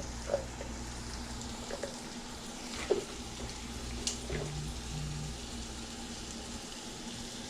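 A pan of food frying in oil with a steady sizzle, and a few light knocks and clicks over it.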